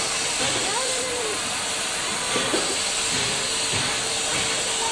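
Standing steam locomotive, Tweetsie Railroad No. 12, giving off a steady hiss of steam, with faint voices of people in the background.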